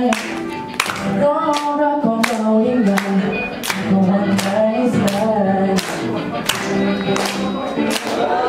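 A man singing a Thai song into a handheld microphone through a PA, over music. A steady beat of sharp taps or claps runs about twice a second.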